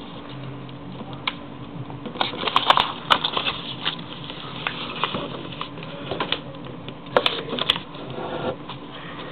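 A sheet of origami paper being folded and creased by hand: irregular crackles and taps of stiff paper, busiest about two to three seconds in and again near seven seconds, over a faint steady hum.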